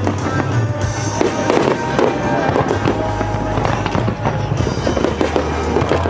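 Fireworks bursting and crackling in quick, irregular succession, with music playing underneath.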